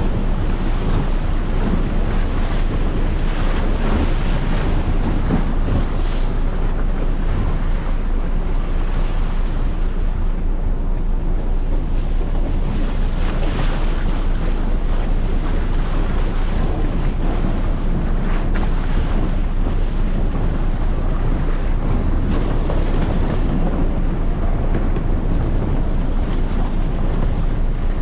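Wind buffeting the microphone on the deck of a sightseeing icebreaker under way, over a steady low rumble of the ship and rushing sea water.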